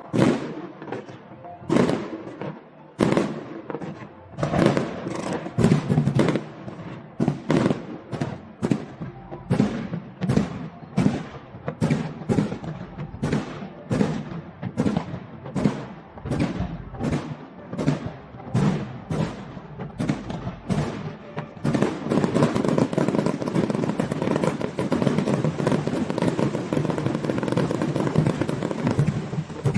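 Festive fireworks display: aerial shells bursting in a quick series of sharp bangs, about two a second. About two-thirds of the way through, it turns into a dense, continuous crackling barrage.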